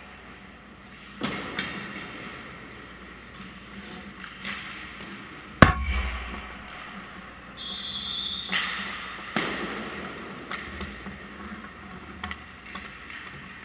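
Ice hockey pucks cracking and knocking off sticks, boards and goalie gear. The loudest hit, a sharp crack with a heavy thump about halfway through, is a shot striking the goaltender's equipment close at hand. A brief high squeal follows a couple of seconds later.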